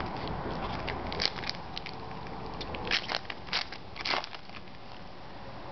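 An Upper Deck hockey card pack's foil wrapper being torn open and crumpled: a run of sharp crackles and crinkles, the loudest between about one and four and a half seconds in.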